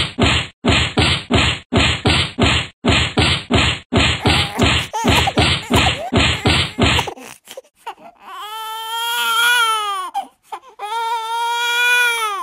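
A rapid, even run of whacks, about three a second, like a beating with plastic bats, lasting some seven seconds. Then a high wailing cry comes twice, each one rising and falling over about two seconds.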